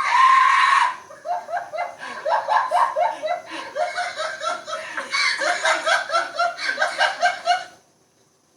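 A person laughing in a long run of rapid, repeated 'ha-ha' bursts that stops abruptly near the end. Before it, in the first second, there is a loud drawn-out cry falling in pitch.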